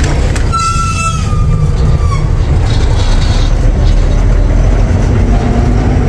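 A truck's diesel engine and drivetrain running under way, a loud steady low rumble heard inside the cab. About half a second in, a high whistling tone cuts in and slides slightly down in pitch for about a second and a half.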